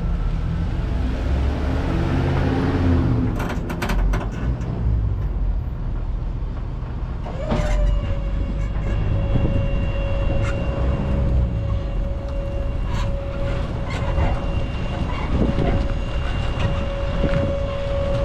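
Truck engine running with a low rumble; about seven seconds in a steady whine joins it and holds, with a few clicks and knocks over the top.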